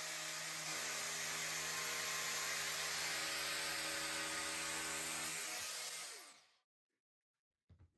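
Electric power tool running at steady speed with a high whine, then switched off about six seconds in and spinning down to a stop.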